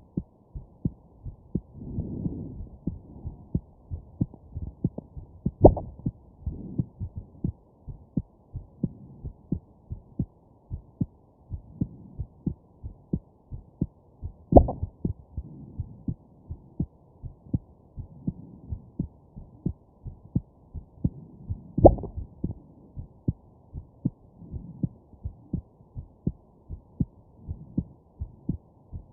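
A person's heartbeat, a steady train of soft lub-dub beats. Three louder, sharper jolts from hiccups come several seconds apart.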